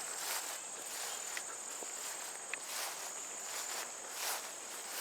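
Insects trilling in one steady, high-pitched drone, with a few soft footsteps on the trail.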